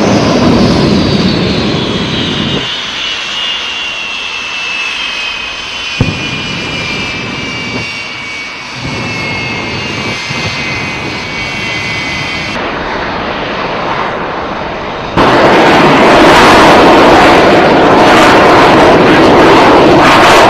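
Jet engines of a jet-powered fire truck running at full power: a high whine over a rushing roar that falls slowly in pitch for about twelve seconds as the truck speeds away. About fifteen seconds in, a much louder, steady jet roar starts abruptly.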